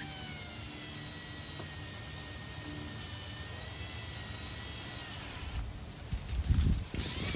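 An electric drill running steadily with a small bit, drilling a hole; its motor whine drifts slowly up and down in pitch. Louder low knocking and rumbling comes in near the end.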